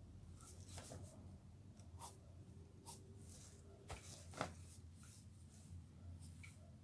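Graphite pencil scratching faintly on paper in short sketching strokes, with a couple of sharper ticks a little before and after four seconds in, over a low steady hum.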